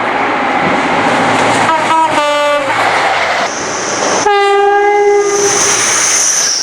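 A train horn sounding over the noise of a moving train: a short two-note blast, high then low, about two seconds in, then a longer single note a little past four seconds.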